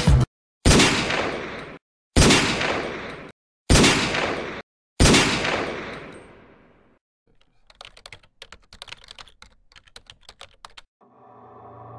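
Four heavy bangs about a second and a half apart, each ringing out as it fades, then a few seconds of rapid, fainter typing clicks; a low drone begins near the end.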